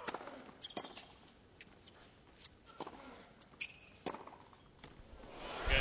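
Tennis ball struck back and forth in a serve-and-rally, sharp pops of racket on ball and bounces roughly every second. Crowd noise swells near the end as the point finishes.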